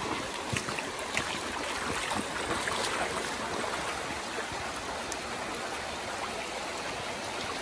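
Shallow mountain river running over a wide bed of stones and pebbles: a steady rushing and burbling of water.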